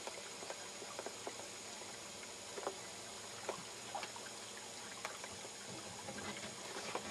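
Faint water lapping and trickling, with scattered light clicks and taps.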